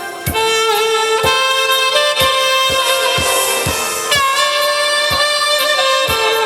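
A horn playing a melody of long held notes with vibrato over a backing track with a steady drum beat, about two beats a second.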